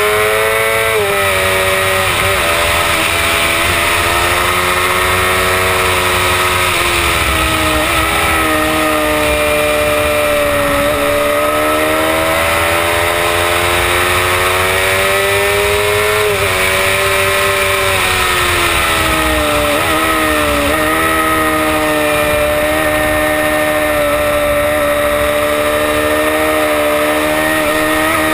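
Honda CBR600RR's inline-four engine running hard on track. The revs climb and fall with the throttle, and the pitch steps sharply at gear changes several times. Steady wind rush runs underneath from the bike's speed.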